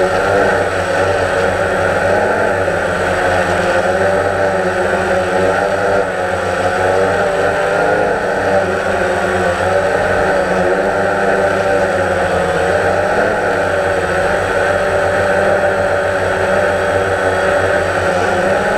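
DJI Phantom quadcopter's electric motors and propellers whirring steadily, heard close up from the GoPro mounted on the drone. The pitch wavers slightly up and down as the motors adjust their speed in flight.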